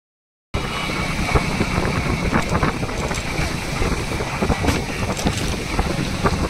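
Wind rumbling on the microphone of a moving motorcycle, with the bike's engine running underneath at low road speed. The sound cuts in suddenly about half a second in.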